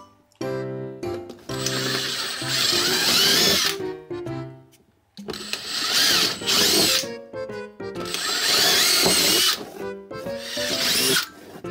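Makita 18V cordless drill with a small twist bit boring pilot holes through a plastic container, running in several bursts of about two seconds each with short pauses between.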